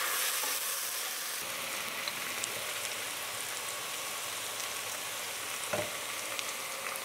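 Diced celery and carrots sizzling steadily as they sear in clarified butter in a hot stainless steel pot, a constant frying hiss with small crackles. A single light knock comes about six seconds in.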